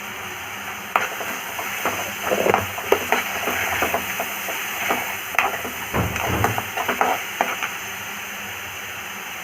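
Onions and ginger-garlic paste being stirred in a hot kadai: irregular scraping and knocks against the pan over the sizzle of frying oil, with the stirring easing off near the end.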